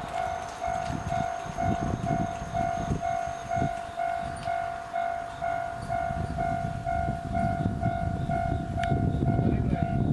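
Japanese railway level-crossing alarm ringing its repeated bell-like 'kan-kan' tone, about three strokes a second, each stroke dying away. Underneath is a low rumble that grows louder near the end.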